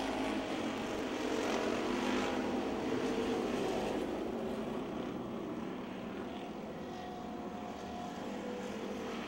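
A pack of stock cars racing on a dirt oval, their engines making a steady, continuous drone. It is loudest around two seconds in and eases after about four seconds as the cars draw away down the far straight.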